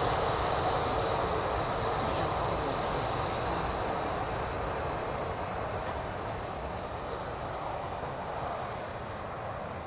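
A Boeing 737-800's CFM56 turbofan engines running at low taxi thrust as the airliner moves away: a steady jet rush with a thin high whine, slowly fading.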